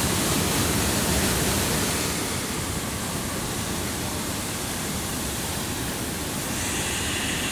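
Waterfall plunging into a pool: a steady, loud rush of falling and churning water.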